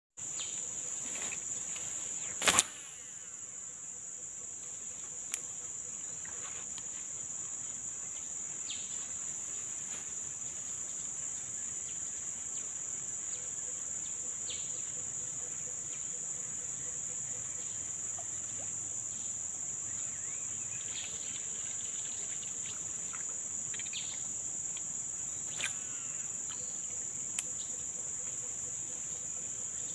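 Steady high-pitched drone of forest insects. A loud sharp click about two and a half seconds in, and a few fainter clicks and short faint chirps later.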